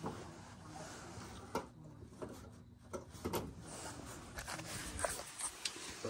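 Faint rustling with a few scattered light clicks and taps.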